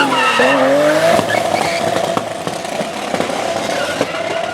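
Rally car engine at high revs. The pitch dips briefly at the start, then climbs and holds as the car accelerates away, fading toward the end.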